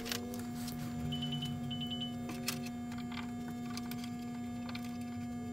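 Steady electrical hum, with light clicks and knocks from hands moving engine wiring and a work light, and two short high-pitched beeps a little over a second in.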